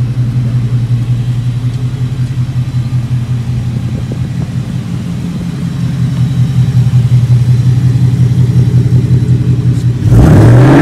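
2020 Ford Mustang GT's 5.0 V8 with a Pypes aftermarket exhaust idling steadily, a deep rumble. About ten seconds in it revs up sharply and gets much louder.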